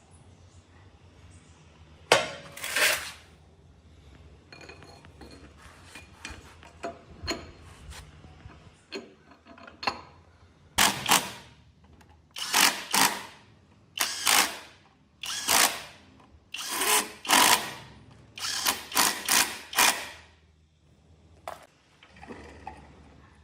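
A power tool run in short bursts of under a second, about fifteen of them in the second half, with faint clicks of tools before them.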